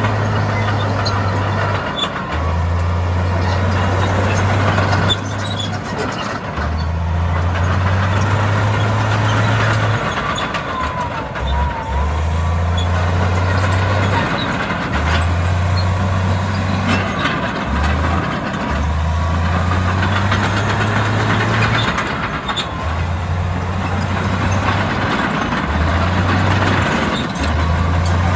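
Heavy diesel construction machinery running, with a deep low drone that cuts in and out every few seconds over a continuous mechanical din.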